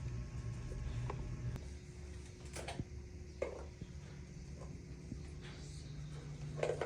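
Steady low hum of a small appliance motor running, with a few faint clicks and taps.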